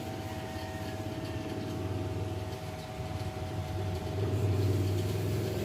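Steady low engine rumble, like an engine idling, growing a little louder in the second half, under a constant thin hum.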